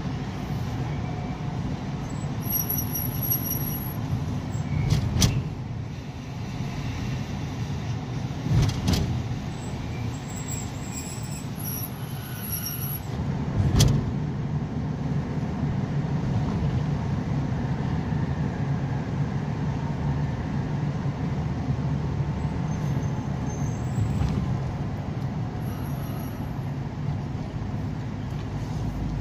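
Car running along a town street, heard from inside the cabin: a steady low rumble of engine and tyres. There are three short thumps, about five, nine and fourteen seconds in.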